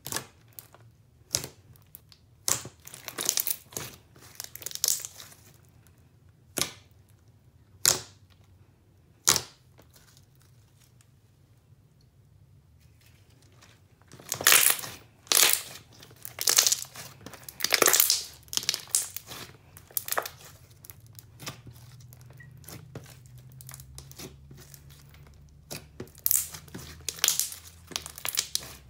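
Clear glitter slime being pressed, stretched and folded by hand, giving sharp bubble pops and sticky crackles. The pops come singly and in quick clusters, with a quiet pause around the middle, then a busier run of louder pops.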